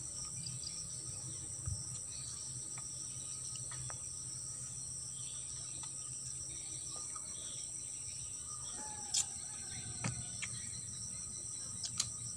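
Steady high-pitched insect chorus, like crickets, running unbroken, with a few brief clicks, the loudest about nine seconds in.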